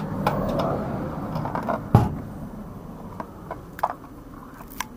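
A toothbrush vending machine dispensing a boxed toothbrush: a rattle as the packet comes down, then one sharp knock about two seconds in. A few light clicks follow as the cardboard box is handled and taken from the delivery tray.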